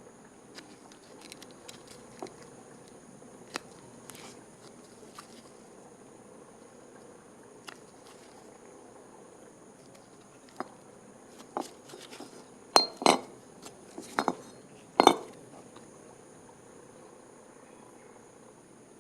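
Metal tools and parts clinking and knocking against each other at irregular intervals during hands-on car repair work, with a cluster of louder sharp knocks about two-thirds of the way through.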